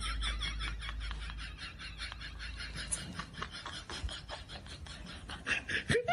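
Soft, breathy giggling in quick pulses, fading, with a brief rising voice near the end.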